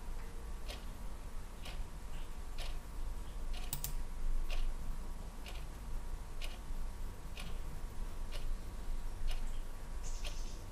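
Computer mouse clicking, single clicks about once a second, over a faint steady low hum.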